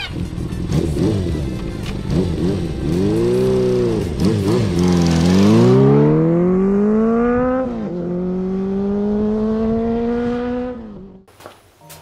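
Honda CB400Four's air-cooled inline-four on a Yoshimura four-into-one collector exhaust, blipped several times, then accelerating hard. Its pitch climbs, drops at an upshift about eight seconds in, climbs again and cuts off about eleven seconds in.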